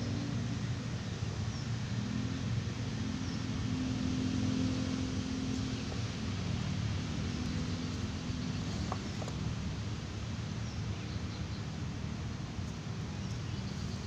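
Steady low engine rumble of vehicles, swelling slightly a few seconds in, over outdoor background noise with a few faint high chirps.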